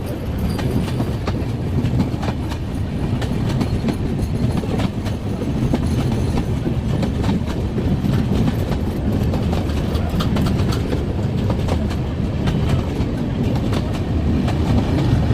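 Broad-gauge passenger train running on the track, a steady rumble with the wheels clicking and clattering over the rail joints, growing slightly louder toward the end.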